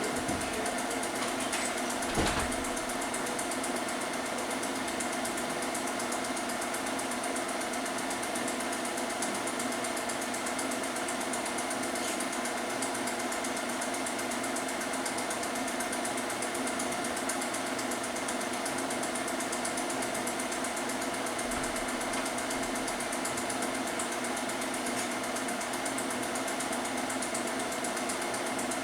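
Film projector running steadily: a constant mechanical whir and clatter with a steady hum. There is one brief thump about two seconds in.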